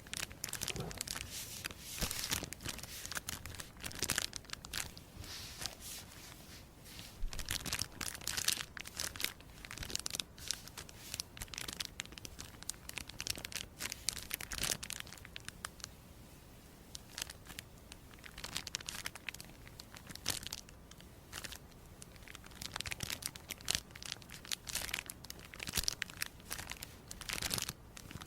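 Crisp material being crinkled and torn close up: dense, irregular crackles and rustles, easing off for a few seconds past the middle before picking up again.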